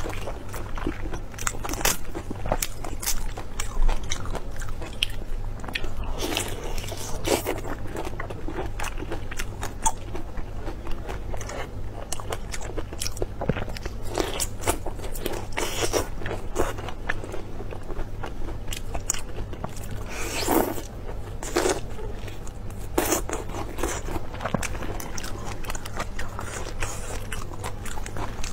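Close-miked biting and chewing of large whole shrimp in a chili-and-garlic marinade: an irregular run of crunches and wet clicks, over a low steady hum.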